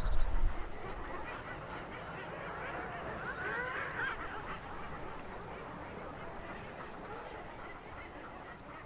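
Many seabirds calling over one another at a cliff colony, with a louder cluster of calls about three and a half seconds in. A brief low rumble comes in the first half-second.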